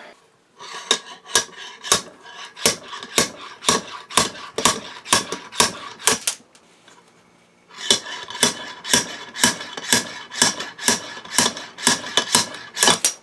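Repeated ringing metal-on-metal blows, about two a second, pounding on a blind bearing puller to drive a stuck needle bearing out of a 2003 Suzuki RM125 engine. The blows come in two runs with a pause of about a second and a half between them.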